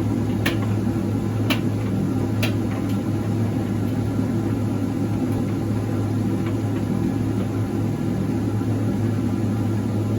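Electrolux QDC commercial vented tumble dryer running a high-heat drying cycle: a steady low hum from the drum and fan motor, with three light knocks about a second apart in the first few seconds.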